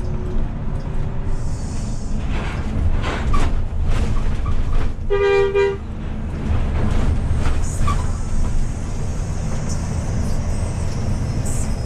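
Coach with a Hino R260 engine running on the road, a steady low engine and road rumble; a vehicle horn honks once, briefly, about five seconds in.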